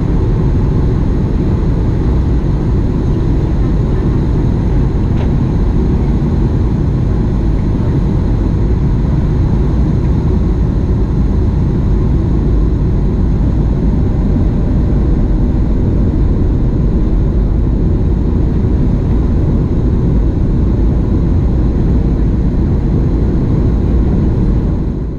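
Steady cabin drone inside a Boeing 737 MAX airliner in flight: noise from its CFM LEAP-1B engines and the airflow, heaviest in the low end, with a faint steady whine above it.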